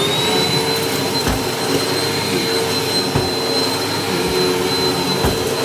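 Upright vacuum cleaner running loudly and steadily, its motor giving a constant high whine over the rush of air. A few faint low bumps come through underneath.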